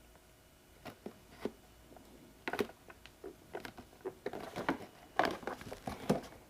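Scattered light clicks, taps and crinkling from handling a stick-on LED light strip and its plastic parts, getting busier over the last couple of seconds.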